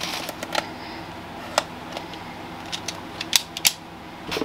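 Handling noise from a weather radio being picked up and set down: about a dozen scattered sharp clicks and taps, thickest in the second half, over a faint steady hum.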